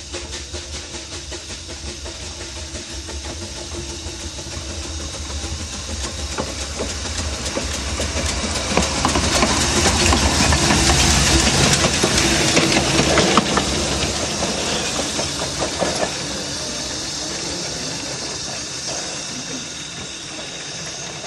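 Narrow-gauge steam train running, with a steady hiss of steam over the rumble and scattered clicks of the wheels on the track. The hiss swells to its loudest about halfway through, then eases back.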